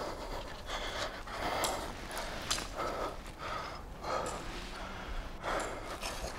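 A rock climber breathing hard under exertion while jamming up a steep crack: repeated heavy, forceful breaths and gasps, roughly one a second.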